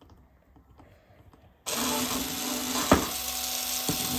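Aprilla cordless drill's small electric motor starting about a second and a half in and running steadily with a whine, a couple of knocks from the bit against the chipboard. The bit spins without boring into the wood.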